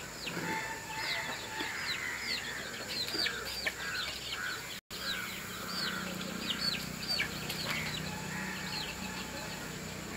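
Birds chirping: a quick, steady run of short, high, falling peeps, several a second.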